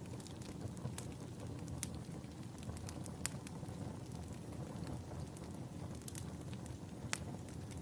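Fire crackling: a steady low rush with sharp pops at uneven intervals.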